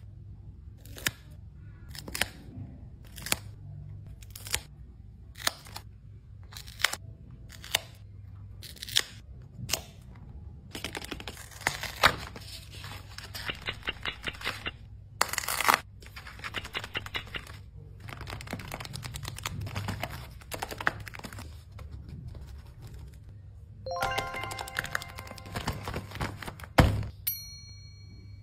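Laminated paper craft pieces being handled over background music. First come sharp taps about once a second, then a long stretch of dense crinkling and rustling. A short tune of pitched tones and a single loud tap come near the end.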